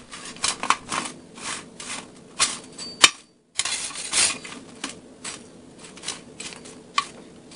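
Slotted metal spatula scraping and knocking against a metal cookie sheet as partly baked frozen fries are turned over, in quick irregular strokes. The strokes break off for a short silence about three seconds in, then go on.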